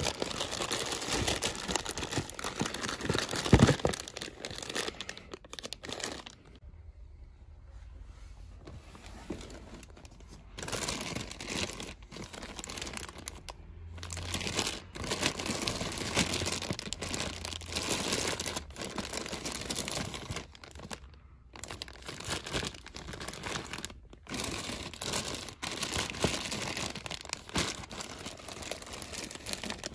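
Clear plastic zip-top bags crinkling and rustling as a hand sorts through bagged action figures in a bin, in irregular bursts with a quieter stretch near the middle. A single sharp knock stands out about three and a half seconds in.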